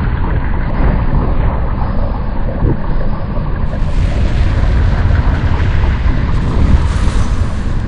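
Loud, steady deep rumble with a hiss above it: the slowed-down sound of an RPG-7 rocket launch blast.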